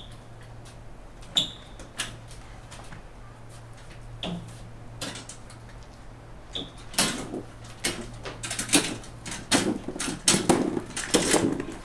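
A hand truck loaded with a cardboard box being wheeled out through a glass door: a few sharp clicks and short high squeaks, then from about seven seconds in a quick run of knocks and rattles as the trolley is pulled along.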